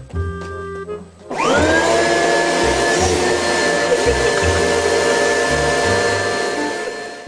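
Upright vacuum cleaner switched on about a second in, its motor whining up to speed and then running steadily and loudly.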